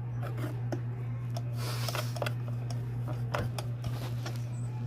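Scattered small clicks and taps of parts being handled during sewing machine cleaning, over a steady low hum, with a brief hiss a little under two seconds in.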